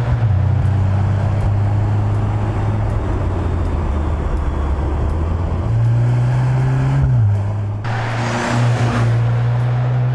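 Mercedes-AMG C63 S E Performance's turbocharged 2.0-litre four-cylinder running as the car drives, its note rising about halfway through and dropping a second or so later. Near the end a rush of road and wind noise comes up over it.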